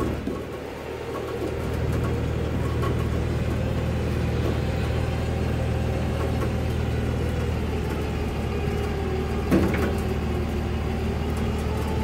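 Tow truck's engine running steadily, with a faint wavering whine above it, while the truck moves a load onto its trailer; the engine picks up about a second and a half in, and there is a single knock late on.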